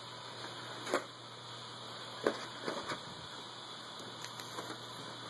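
A few short knocks and rustles from a cardboard gift box and the fleece clothing being pulled out of it, over a low steady hum.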